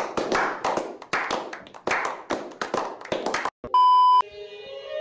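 A small group clapping hands in a steady rhythm, about four claps a second, that stops abruptly after about three and a half seconds. After a short gap comes a loud, steady test-tone beep lasting about half a second, and then faint sustained music notes begin.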